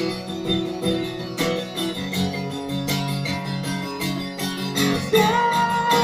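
Guitar strummed in a steady rhythm. A man's singing voice comes in strongly about five seconds in.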